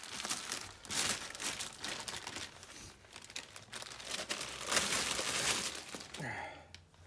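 Thin plastic bag crinkling and rustling as it is handled and pulled off a new differential, in irregular noisy crackles that ease off after about six seconds.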